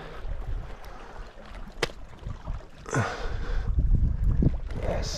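Wind buffeting the microphone as a low rumble that gets heavier in the second half, with a single sharp click about two seconds in and two short rushes of noise.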